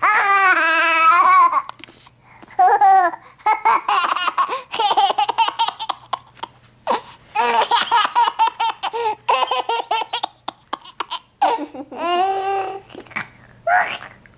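Baby boy laughing in runs of short, rapid ha-ha pulses, between high-pitched babbling calls.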